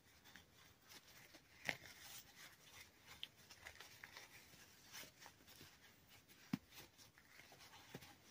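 Near silence, with faint rustling of wool fabric being handled and turned right side out by hand, and a few brief soft ticks.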